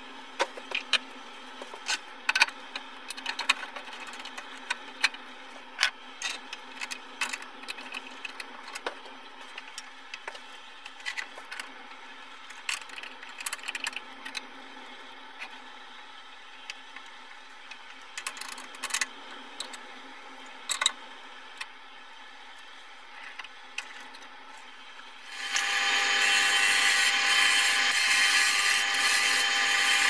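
Scattered metal clicks and clunks as lathe parts are handled and a chuck is fitted. About 25 seconds in, the wood lathe starts and a turning tool cuts into a spinning blank of karin (Chinese quince), a loud, steady cutting noise that lasts to the end.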